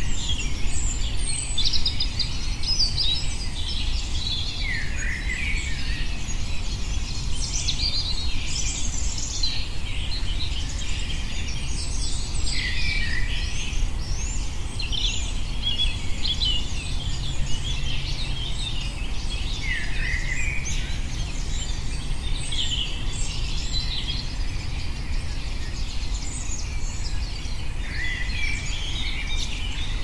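Woodland birdsong: several birds singing and calling in overlapping phrases, one falling phrase coming back every seven or eight seconds, over a steady low rumble.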